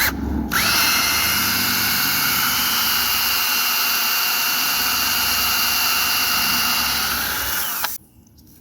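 A high-speed pneumatic air tool spins up about half a second in and runs at a steady high whine over loud air hiss for about seven seconds, then spins down and cuts off.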